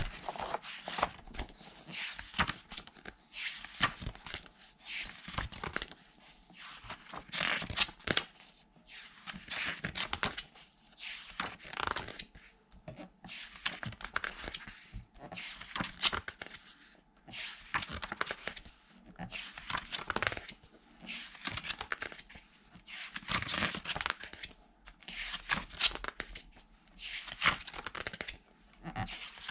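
Glossy pages of a large art book being turned by hand one after another, each turn a short papery swish and flap, about one a second.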